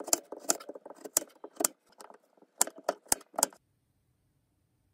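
Kitchen knife chopping a carrot on a plastic cutting board: about nine sharp chops, roughly two a second, stopping a little over three and a half seconds in.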